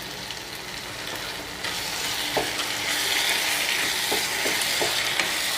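Chicken pepper masala sizzling and frying in a pan while being stirred, with a few light spatula scrapes and taps against the pan. The sizzle grows louder about a second and a half in.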